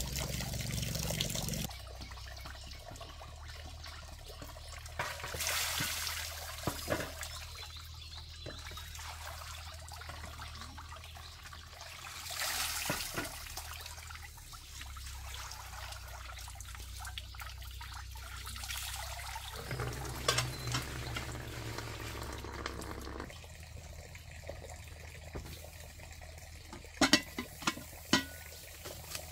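Running and splashing water as greens are washed by hand in a basin. Near the end, a few sharp metal clinks as a lidded cast-iron pot is set on an iron trivet over a wood fire.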